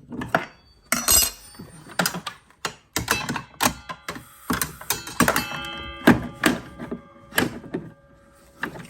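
Repeated knocks and clanks of metal parts being handled on a table saw as the riving knife is taken out and the blade guard fitted. One knock about five seconds in leaves a brief metallic ring.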